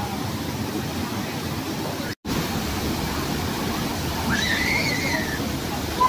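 Steady rush of a waterfall cascading over rocks into a pool. The sound cuts out for an instant about two seconds in, and a voice calls out briefly near the end.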